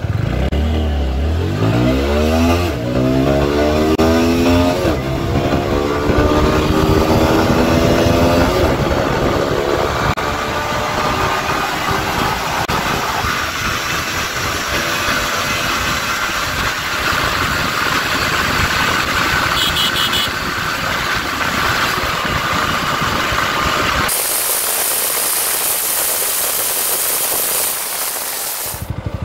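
Motorcycle engine accelerating hard through the gears: the pitch climbs, drops at each upshift and climbs again, with each gear held longer than the one before. It then settles into a steady high-speed drone with wind noise. Near the end the engine falls away, leaving a loud hiss.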